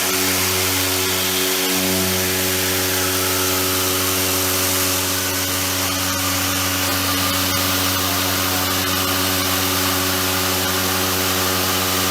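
SDV-HLA milling machine taking a heavy milling cut: a steady, loud pitched hum from the spindle and cutter over a hiss. The hum briefly drops out about a second and a half in.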